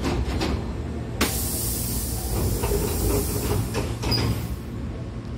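Train's double sliding passenger doors closing: a sharp stroke about a second in, followed by about a second of air hiss, over the steady low hum of the stationary train.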